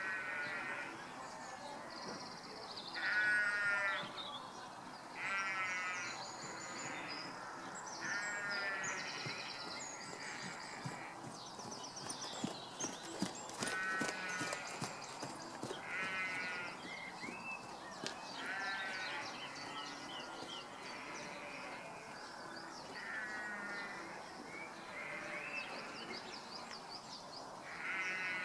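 An animal calling over and over, one call under a second long every two to three seconds, with fainter high chirping behind it and a few sharp clicks near the middle.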